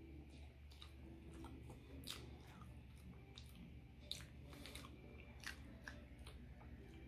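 Faint chewing of a mouthful of banana, with wet mouth smacks and clicks coming irregularly, about twice a second.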